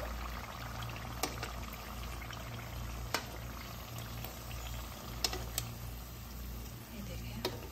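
Spring rolls deep-frying in hot oil, sizzling steadily, with about five sharp clicks of a metal slotted spoon and tongs against the pan as the golden-brown rolls are lifted out.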